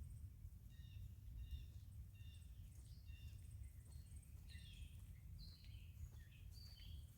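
Faint birdsong: many short chirps and whistled notes repeated throughout, over a steady low rumble.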